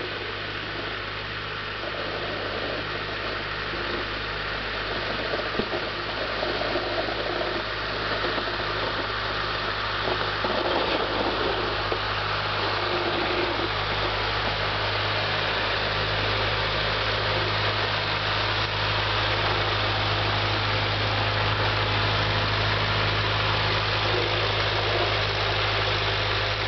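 Small farm tractor's engine running steadily while it pushes snow with a blade, growing louder as the tractor comes closer.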